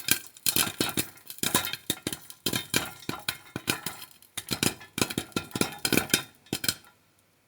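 Popcorn kernels popping in a pan: rapid, irregular sharp pops, several a second, thinning out and falling quiet near the end.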